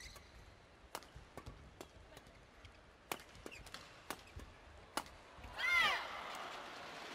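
A doubles badminton rally: sharp clicks of rackets hitting the shuttlecock, about one every half-second to second. Near the end comes a short high-pitched squeal, the loudest sound, and then steady crowd applause as the point is won.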